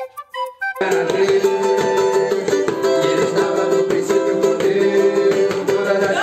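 A small ukulele-type acoustic string instrument strummed in a steady rhythm. A short melody of single notes is cut off less than a second in.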